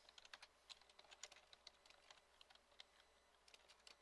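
Faint computer keyboard typing: keys clicking in quick, uneven runs as a line of code is typed.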